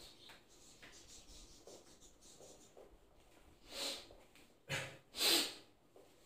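Whiteboard duster wiping the board: soft rubbing, then three louder swishes between about four and five and a half seconds in.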